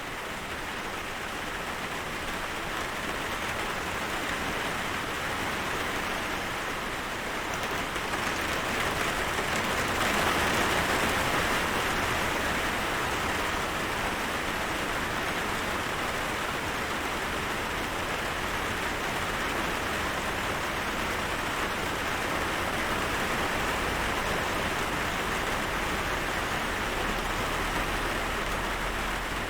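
Steady rain falling: a dense, even hiss of many drops, swelling a little louder about ten seconds in before settling.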